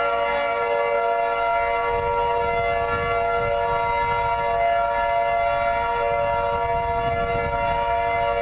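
Outdoor tornado warning siren sounding a steady, held tone during a siren test. A low rumble joins about two seconds in.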